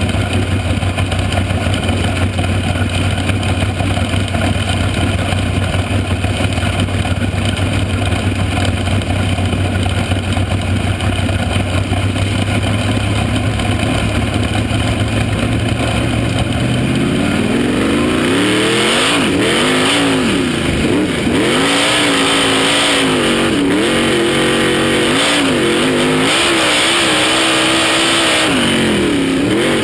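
Onboard sound of a dirt-track race car's engine at speed. It holds a steady drone at first. About 17 seconds in, the revs start rising and falling over and over as the throttle is lifted and reapplied around the oval.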